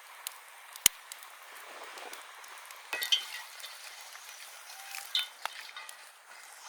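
Fish frying in hot oil, a steady sizzle, with metal clinks of a utensil against the pan: a sharp click about a second in and short clusters of ringing clinks around three and five seconds in.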